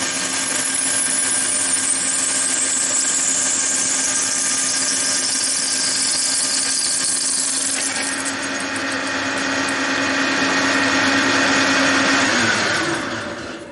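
Metal lathe taking a cut across a large disc at a heavier feed and depth of cut, cutting steadily without chatter, with a high whine that glides slowly downward over the first half. Near the end the lathe is switched off and the spindle runs down.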